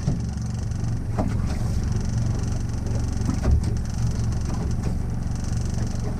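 Boat engine running steadily with a low drone, with a few short knocks on the hull or deck.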